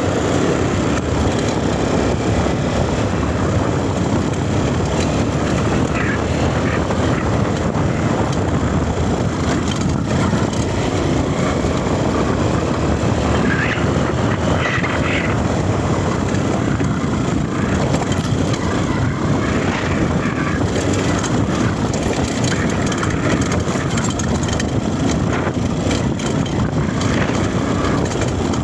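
Dirt bike engine running steadily while riding.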